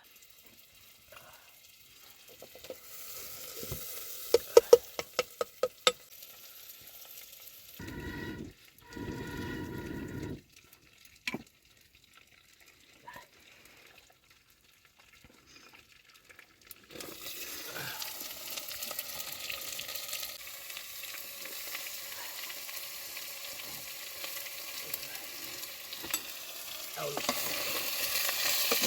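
Food sizzling as it fries in a pan. The hiss starts about halfway through and grows louder near the end. Before it comes a quick run of sharp knocks and a couple of short bursts of noise.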